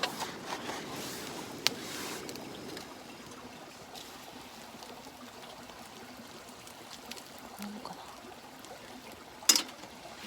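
Hot water being poured into an instant udon cup for about the first three seconds, then a quieter steady trickle. There is a sharp click about a second and a half in, and a louder one near the end.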